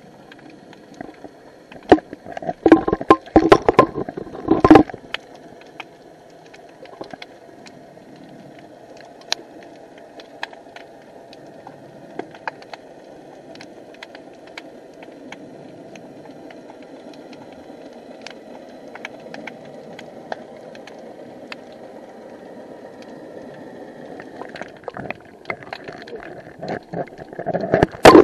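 Underwater sound through a hand-held action camera's waterproof housing: a steady muffled wash dotted with scattered sharp clicks. Loud bursts of knocking and rubbing come about two to five seconds in and again near the end, as the housing is handled and moved.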